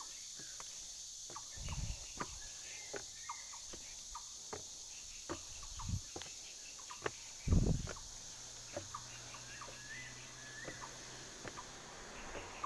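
Footsteps and phone-handling bumps on an outdoor staircase, with a few heavy low thumps, over a steady high insect drone and a few short bird chirps.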